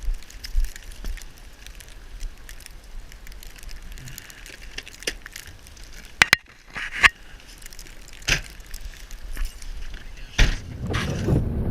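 Scattered crunches, clicks and sharp knocks. Near the end comes a louder knock, then a low steady rumble.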